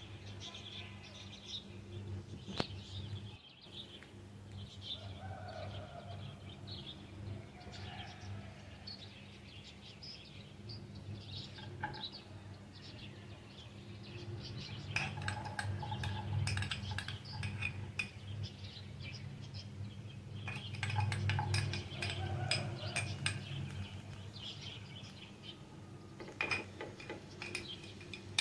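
Spatula stirring in a nonstick frying pan, then chopped vegetables tipped in from bowls several times, each with a cluster of clinks and taps against the pan, over a low steady hum.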